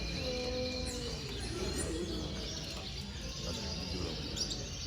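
Caged canaries chirping and calling in short, scattered notes over a steady low background hum.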